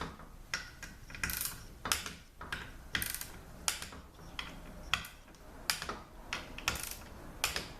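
Ratchet-head torque wrench, set to 100 inch-pounds, tightening valve body bolts: a string of separate sharp clicks at uneven spacing.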